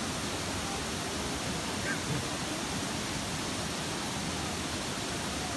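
Steady rush of a waterfall, an even hiss of falling water that holds at one level throughout.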